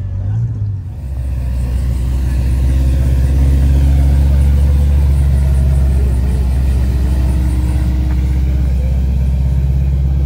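A car engine idling with a deep, steady rumble that comes in loudly about a second in.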